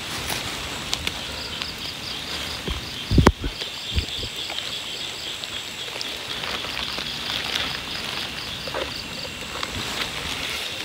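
Rapid, high, pulsed chirping of night insects over the patter of rain, with a single thump from handling the catch about three seconds in.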